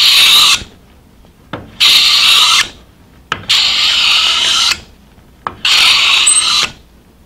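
Scraper plane with a fixed scraper blade being pushed along the edge of a hard maple board, scraping off fine shavings. A stroke ends just as the sound begins, then three more pushes of about a second each follow, each starting with a short click.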